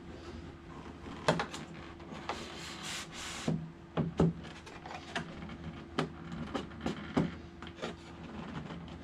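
Irregular knocks and taps, with a short scraping rub about three seconds in, as a model jet's wing is slid onto its carbon wing tube and fitted against the fuselage. A steady low hum runs underneath.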